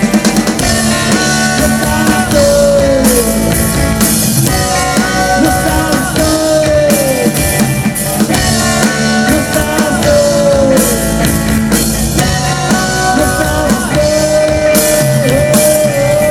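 Rock song with drum kit and guitar, and held sung notes that slide down at the end of each phrase.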